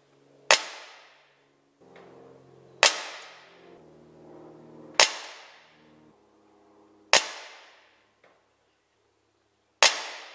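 ASG Dan Wesson 715 CO2 pellet revolver firing five shots, about two seconds apart. Each shot is sharp, with a short echoing tail.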